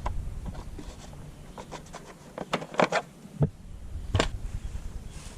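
Handling noises of a lawnmower's air filter being taken out: a series of sharp clicks and knocks with some rubbing, loudest a little past the middle.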